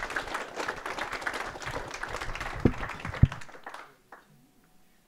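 A small audience applauding, the clapping dying away about four seconds in, with two louder thumps shortly before it ends.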